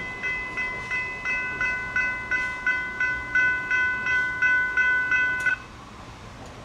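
Railroad crossing bells, GS Type 3 electronic bells, ringing at about three strikes a second. They cut off suddenly about five and a half seconds in as the gates finish rising, ending the crossing's activation after the train has cleared.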